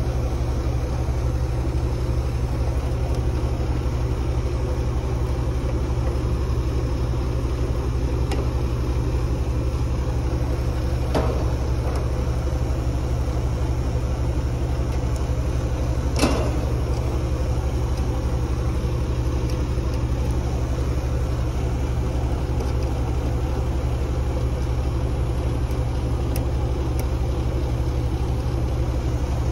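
Cordless vacuum pump running with a steady low hum as it pulls a vacuum on the new condenser's refrigerant lines. Two short knocks come about eleven and sixteen seconds in.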